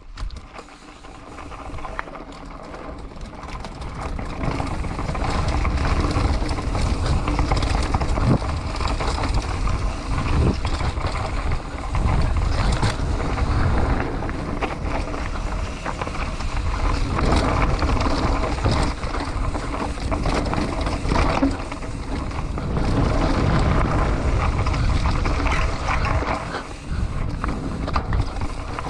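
Mountain bike riding down a dirt trail: tyre roar, rattling and knocks from the bike, and wind on the microphone. It builds up over the first few seconds as the bike picks up speed, then stays steady.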